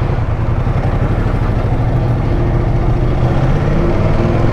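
Ducati motorcycle engine running steadily over a constant rushing noise.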